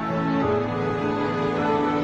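Slow, sad-sounding background music with sustained notes; the chord changes about half a second in.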